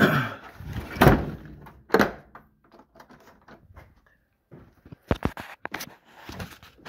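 A wooden door being handled: three heavy thuds in the first two seconds, then a quick cluster of sharp clicks a little after five seconds in.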